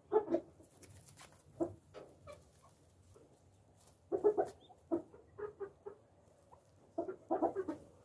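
Japanese bantam chickens clucking in short clusters of quick notes, one right at the start, one about four seconds in and another near the end, with quieter gaps between.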